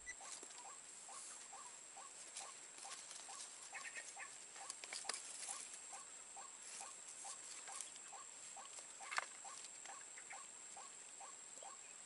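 Faint, regular ticking, about three a second, over a steady high-pitched whine, with one sharper click about nine seconds in.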